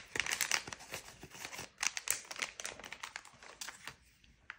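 Clear plastic zip bag crinkling and rustling as it is handled, a dense run of small crackles that dies away near the end.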